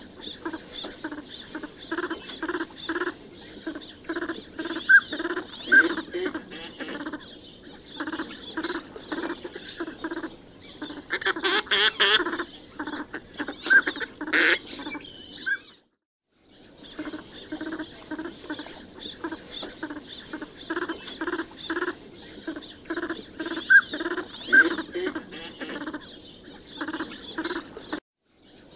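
Northern pintail ducks calling: a steady string of short repeated calls, about three a second, the recording used as a hunting lure. A louder, rougher burst comes about eleven seconds in, and the sound cuts out briefly twice.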